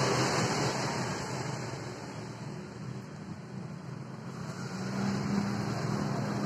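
Steady background noise with a low hum, dipping a little in the middle and rising again near the end.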